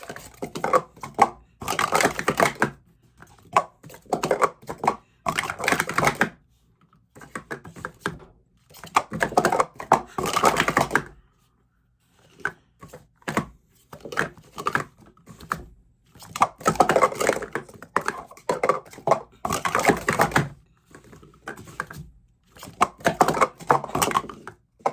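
Speed Stacks sport stacking cups, new Graphite Snap Tops, being stacked up and down at speed: quick runs of plastic cups clattering and clacking together, several runs of a second or two with short pauses between.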